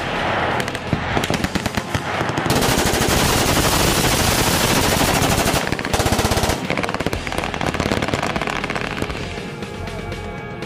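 Machine guns firing long, rapid automatic bursts, several at once, at an RC target plane. The fire is densest and unbroken from about two and a half to six seconds in, then thins out as rock music with guitar comes in near the end.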